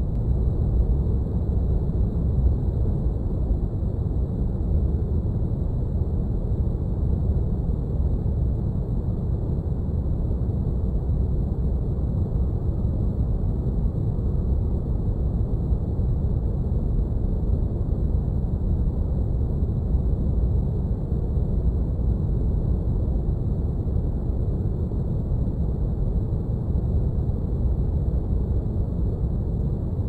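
Sci-fi spaceship cockpit ambience: a steady, deep rumbling hum like brown noise, with a few faint thin high tones held above it.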